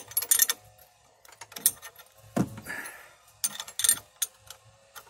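Metal clicks and clinks of a wrench turning the forcing screw of a brake-line double-flaring tool, driving the die in to form the rounded first stage of a double flare. Scattered single clicks, with a duller knock about halfway through.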